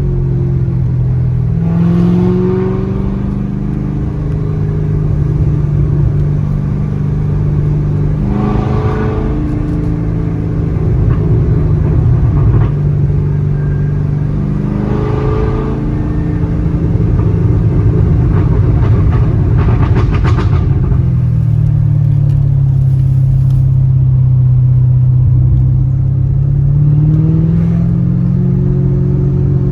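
Supercharged LT5 V8 of a 2019 Corvette ZR1 with an Armytrix valved exhaust and American Racing headers, driven through the gears: the engine pitch climbs and drops several times, and about four rev-matched downshifts each set off a short crackling exhaust burp.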